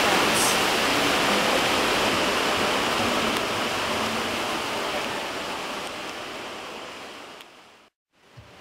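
Audience applauding, a dense even clatter that slowly dies away and drops to silence near the end.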